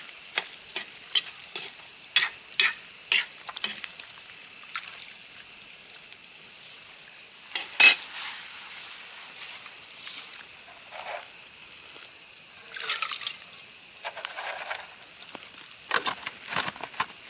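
Crickets chirping in a steady, pulsing high trill, with scattered clicks and knocks of cooking utensils against a pan. The sharpest knock comes about eight seconds in.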